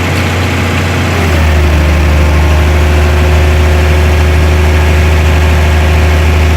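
Heavy equipment engine running steadily with a deep hum. About a second in it gets louder and deeper, then holds there.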